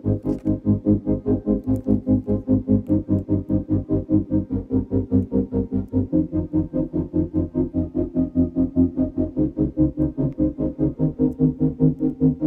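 Background music with chords pulsing in a steady, quick rhythm.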